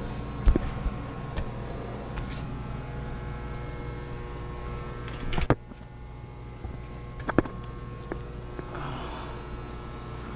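Steady hum of running refrigeration machinery, with a short high electronic beep every couple of seconds and a few sharp clicks and knocks, the loudest about five and a half seconds in.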